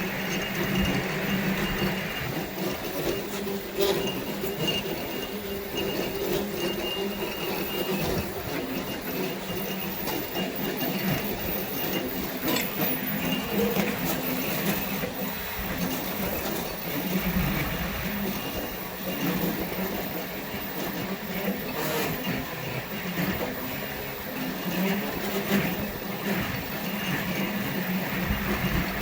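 Central Machinery benchtop milling machine converted to CNC, running: a steady mechanical hum with a constant high whine and scattered clicks.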